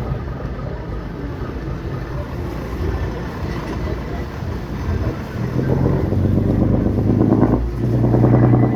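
Tour boat's engine running over the wash of moving water. About five seconds in, a louder, steady engine drone rises above the noise, dips briefly, then comes back louder.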